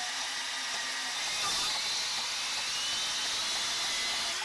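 RIDGID 18V cordless compact band saw running free with no material in the cut, its motor and blade speeding up as the variable-speed dial is turned from the lowest setting (320 surface feet per minute) toward the top (680). The whine gets a little louder and climbs slowly in pitch after about a second and a half.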